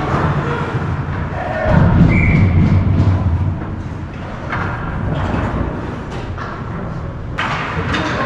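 Hockey game play on the rink: thuds and sharp knocks of sticks, puck and bodies against the boards over a steady low rumble, with players' voices calling out.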